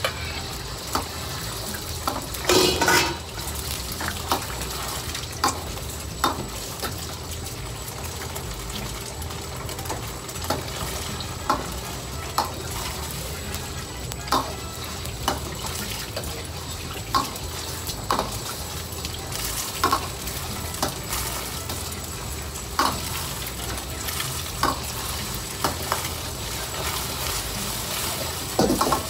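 Beaten egg frying with a steady sizzle in hot oil in a steel wok, while a metal ladle knocks and scrapes against the wok about once a second as the egg is stirred, with a longer, louder clatter about three seconds in.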